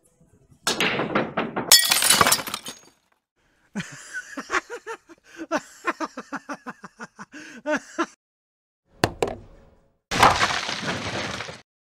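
A glass pendant lampshade over a pool table shatters, with a loud crash and glass shards clattering down onto the table. Young men's rapid, pulsing laughter and shouting follow.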